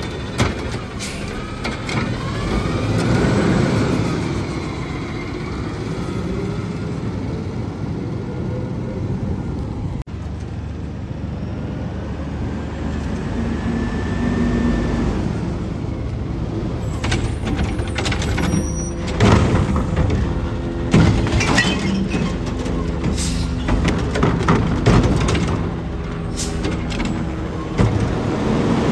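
Curotto Can front-loader garbage truck working: the diesel engine runs steadily and rises in pitch a few seconds in. A series of sharp clanks and knocks comes in the second half.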